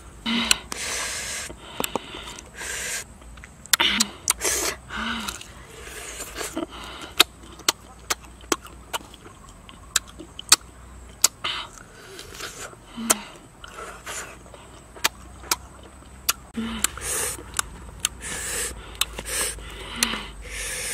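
Close-up eating sounds: sharp crunching and snapping bites of green tamarind pods, with many quick clicks through the middle. At the start and again near the end these give way to short rushing slurps and sharp intakes of breath.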